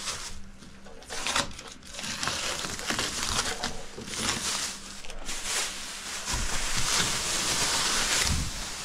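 Plastic masking film and masking tape being pulled off a car's front bumper and crumpled, an irregular crinkling and rustling. A few dull bumps come in the last few seconds.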